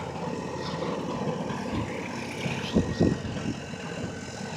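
A large engine running steadily, with two sharp thumps close together about three seconds in.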